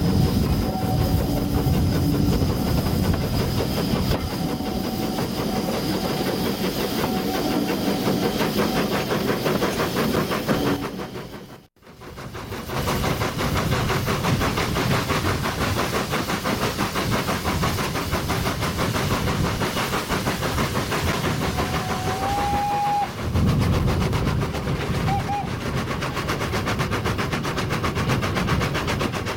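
Brighton Terrier 0-6-0 tank steam locomotive and its train running along the line, heard from the carriage behind: a steady mix of engine exhaust, hiss and wheels on rail. The sound drops away briefly just before halfway, and a short high tone sounds about two-thirds through.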